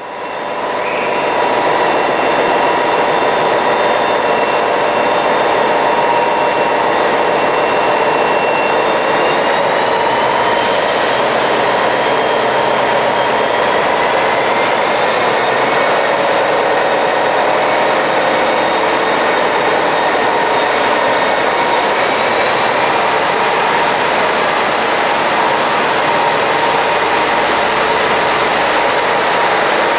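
Class 57 diesel locomotive's turbocharged EMD engine running hard under power as it hauls a train away, loud and steady. Its whining tones rise in pitch about ten seconds in as it gathers speed.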